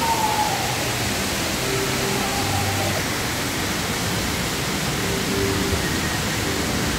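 Steady hissing background noise of a busy casino floor, with a few faint short tones drifting through it.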